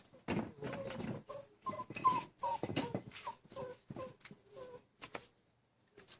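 A dog whimpering and whining in a quick series of short calls, breaking off near the end.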